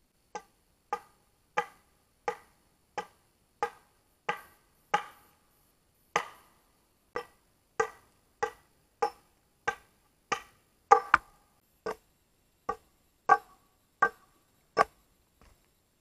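A steady series of sharp wooden knocks, about one every two-thirds of a second, each with a brief ringing tone: a tool striking wood, in time with hand work.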